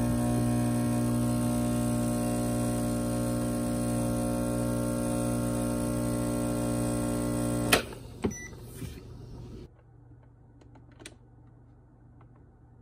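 Gaggia Classic Pro's vibratory pump buzzing steadily while it pushes water through the puck to pull an espresso shot. It is switched off about eight seconds in with a sharp click, and a second click follows half a second later. A faint tick comes near the end.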